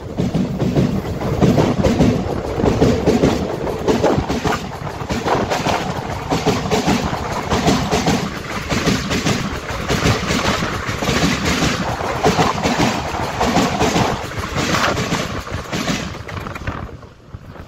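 A passenger train's carriages passing directly overhead, heard from between the rails: a loud, continuous rush of noise with irregular clattering knocks from the wheels on the track. It fades and then cuts off near the end.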